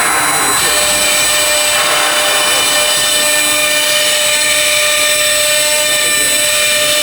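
CNC router with automatic tool changer running, its spindle holding several steady high whines while the bit cuts the workpiece with a steady rushing noise.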